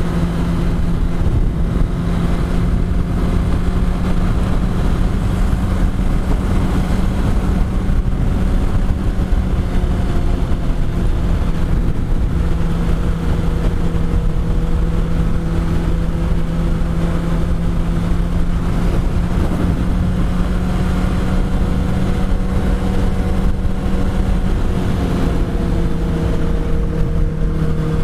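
Yamaha R1's inline-four engine running under way at a fairly steady pitch, rising and falling only slightly, with wind rushing over the microphone.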